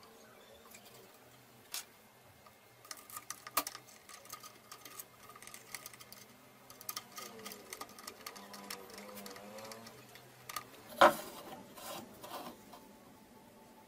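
Scattered small clicks and taps of hands handling the wooden parts and thin blade of a homemade plywood jigsaw table, with one much louder knock toward the end.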